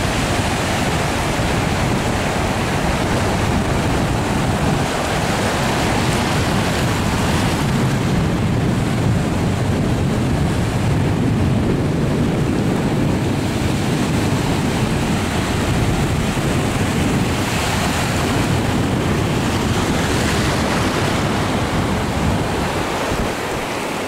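Small surf breaking and washing over shallow beach water, steady throughout, with wind rumbling on the microphone.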